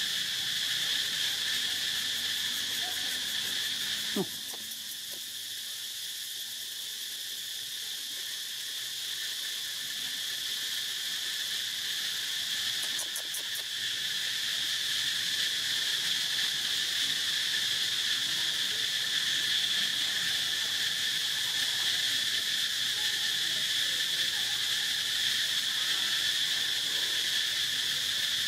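Steady chorus of insects, a continuous shrill drone held at a couple of pitches. A short falling squeak is heard about four seconds in.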